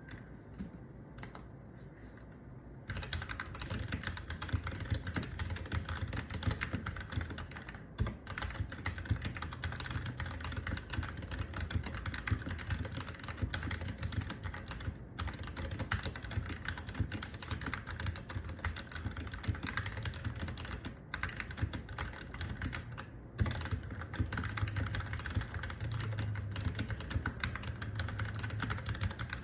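Royal Kludge RK84 mechanical keyboard with Cherry MX Red linear switches being typed on in a steady, fast run of keystrokes. The keystrokes start about three seconds in, after a few faint ones.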